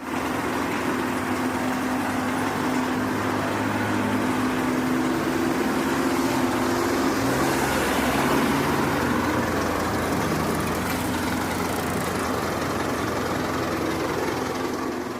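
Engine of a working construction machine running steadily, with a constant hum and broad mechanical noise; its lower note shifts a little partway through.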